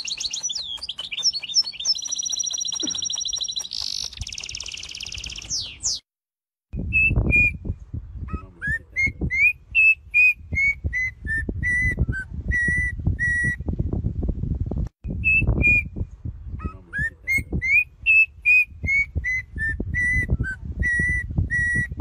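A small finch-like bird sings a high, rapid warbling song. After a short break, a yellow-and-black oriole whistles a melodic phrase of clear notes that slide up and down, then repeats the phrase. A low rumble sits under the oriole's song.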